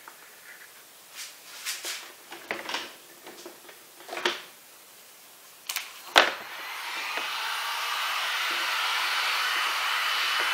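A few light clicks and knocks of things being handled on a table. About six seconds in comes a sharp click, then a handheld hot-air blower starts up and runs with a steady rushing hiss that builds over a couple of seconds.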